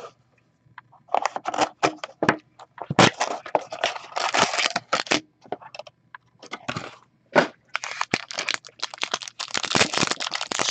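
A cardboard Upper Deck SP Game Used hockey card box being torn open by hand, then the foil card pack inside crinkling as it is ripped open. It is a run of irregular tearing and crackling, denser and more continuous in the last few seconds.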